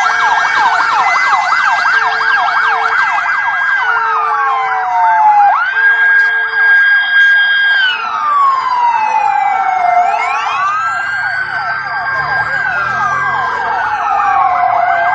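Several emergency-vehicle sirens sounding together, with quick rising-and-falling sweeps in the first few seconds, then slower wails that fall and rise again.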